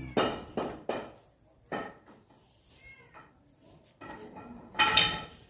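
A cat meowing: several short, high calls, the loudest near the end.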